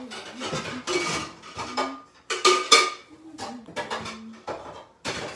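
Kitchen clatter: dishes and utensils clinking and knocking against each other in a series of sharp, uneven strikes, some ringing briefly.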